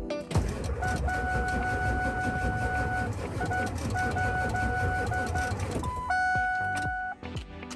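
The 7.3-litre Power Stroke diesel of a 2000 Ford F350 being cranked by its starter for about five and a half seconds without catching. A steady electronic warning chime sounds through the cranking, breaks up a few times, and carries on alone after the cranking stops.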